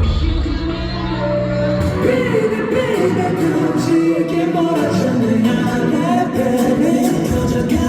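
Live pop song played over a concert PA: a male voice singing over an amplified backing track. The heavy bass drops away about two seconds in and comes back near the end.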